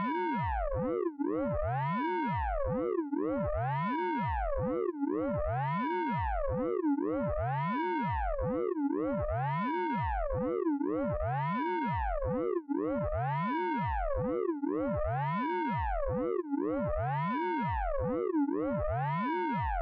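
Synthesized radar pulse-train effect from the Orange Vocoder plug-in: a buzzy tone rich in overtones that sweeps up and back down in pitch, repeating evenly about every two seconds.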